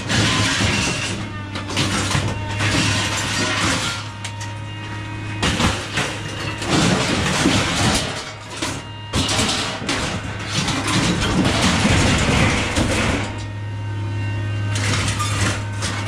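Irregular clattering and knocks over a steady low hum, with background music.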